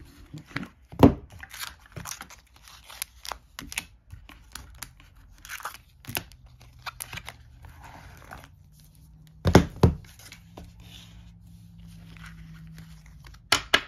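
Shrink-wrapped decks of playing cards handled and set down on a wooden table: crinkling and rustling of the plastic wrap, with a few sharp knocks as decks land, loudest about a second in and about ten seconds in.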